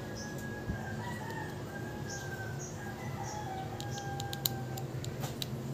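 A rooster crowing in long, drawn-out calls. In the second half come a run of small sharp clicks from a metal pick prying along a phone's frame.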